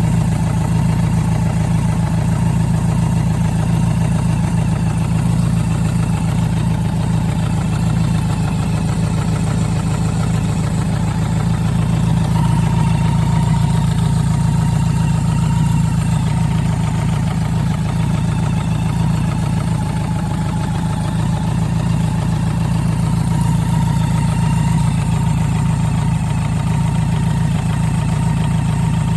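BMW K100RS inline-four motorcycle engine idling steadily, with the engine knock it is being recorded for.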